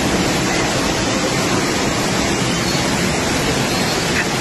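Floodwater rushing and churning as a fast torrent: a loud, steady rushing noise.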